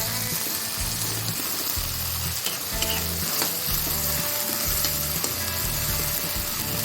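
Food frying in hot oil in a pan, a steady sizzle with a few clicks of the stirring utensil.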